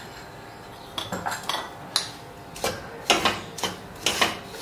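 Wooden spatula scraping and knocking against a kadhai while stirring and breaking up milk powder roasting in ghee. A quick run of scrapes and taps starts about a second in, roughly two a second.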